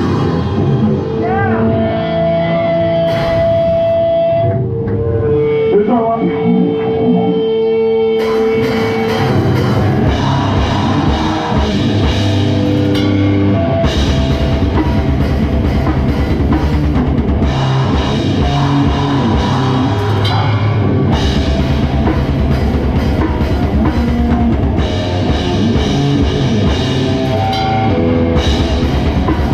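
Gore grind band playing live. A few seconds of long, held notes give way about eight seconds in to the full band, with very fast, dense drumming and heavy distorted guitars.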